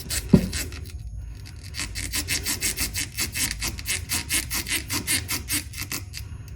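Soldering iron and connector scraping back and forth against a lead-acid battery's terminal tab, a rapid rhythmic rasp at about four strokes a second, as the soldered connector is wiggled loose under heat. A single sharp knock comes just after the start.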